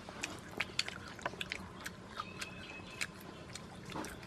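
Close crunching and crackling of roasted tarantulas being bitten, chewed and pulled apart by hand: a dozen or so sharp, irregular crackles.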